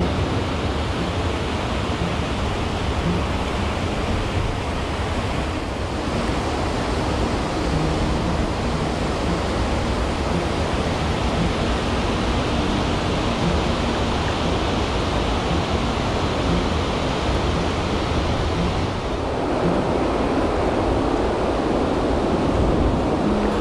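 Water pouring over a low-head dam spillway: a steady, loud rushing roar of falling water, its hiss easing slightly near the end.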